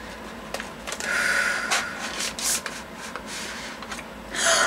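Wrapping paper crinkling and rustling as a small present is carefully unwrapped by hand, with a louder stretch of rustling lasting about a second from around a second in and another short rustle near the end.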